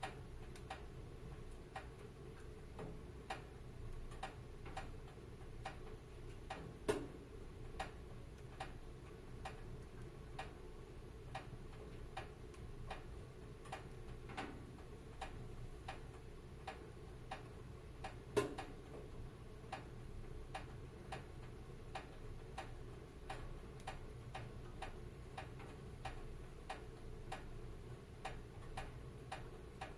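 Wood fire crackling in a fireplace: frequent small clicks and pops over a low steady hiss, with a louder snap about seven seconds in and another past the middle.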